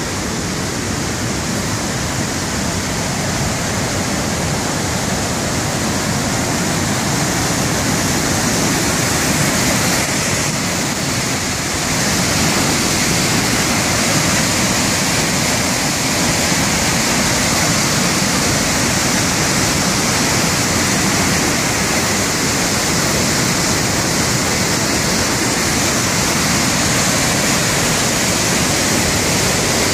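Waterfall's whitewater rushing in a loud, steady roar of falling water, growing a little louder about twelve seconds in.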